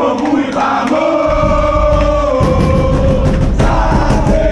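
A crowd of football supporters chanting and singing together in unison, with a low rumble on the microphone from about a second in.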